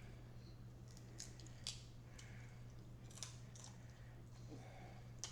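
Faint, scattered clicks and small cracks of Dungeness crab shell being picked apart and eaten, with some squishy chewing, over a steady low hum.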